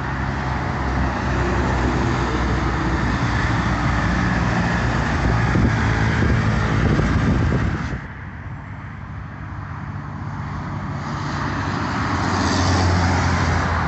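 Heavy diesel trucks, concrete mixer trucks among them, passing close on a highway, their engines running over steady tyre and road noise. The noise drops suddenly about eight seconds in, then swells again near the end as another truck goes by.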